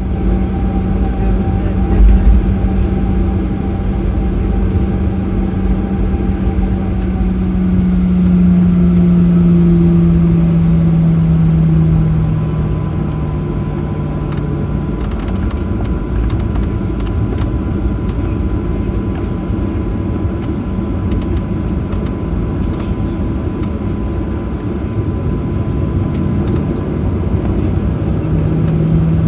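Cabin sound of a Boeing 737-800's CFM56 engines at low thrust as the jet lines up for takeoff: a steady hum over a low rumble, with one thump about two seconds in. The engine tone drops a little about a third of the way through and grows louder near the end as thrust comes up.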